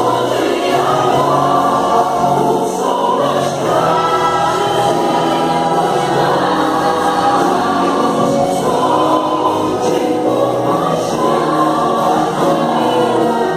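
Gospel song with a choir singing sustained, held lines over the accompaniment.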